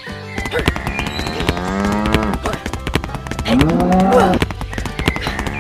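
Two long, drawn-out animal calls, each rising in pitch at the start, over a run of small clicks.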